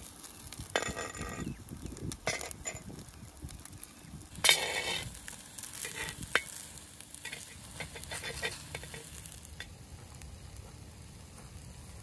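Vegetable kookoo sizzling in oil on a metal griddle while a metal spatula scrapes and taps across the griddle, cutting it into wedges. The loudest scrape comes about four and a half seconds in, and the sizzle grows fainter near the end.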